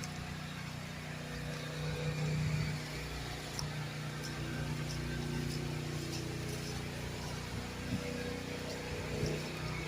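An engine running steadily with a low hum, with a few faint, short high ticks over it.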